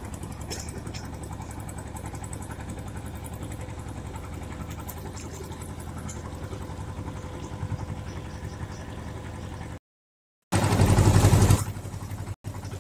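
Small boat's engine running steadily with a low, pulsing rumble. About ten seconds in the sound drops out briefly, then returns for about a second much louder with a rushing noise before settling back to the steady rumble.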